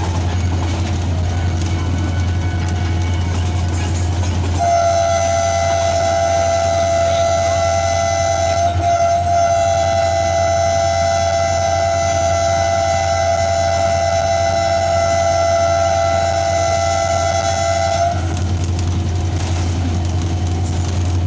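Diesel locomotive running with a steady low engine hum. About four and a half seconds in, its horn sounds one long blast of two close notes, held for about thirteen seconds before it cuts off.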